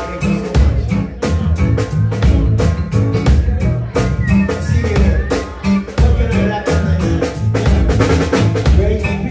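Live band music: a drum kit keeping a steady beat over electric bass and strummed acoustic guitar.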